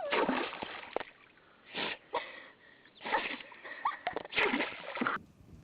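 An animal sneezing repeatedly: about four short, sharp bursts spread over a few seconds.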